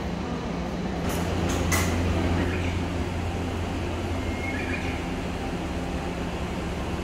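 Electric train's steady low hum heard from the cab, with three sharp clicks between one and two seconds in.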